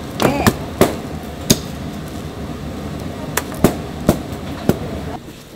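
Meat cleaver chopping braised pig's trotters on a plastic cutting board: sharp, irregular chops, four in the first second and a half and four more from about three to five seconds in, over a steady low market background.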